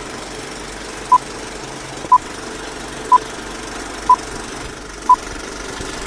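Vintage film-leader countdown sound effect: a steady film-projector rattle and hiss, with a short high beep once a second marking each number.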